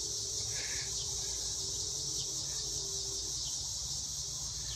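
Steady high chorus of crickets, with a low rumble underneath.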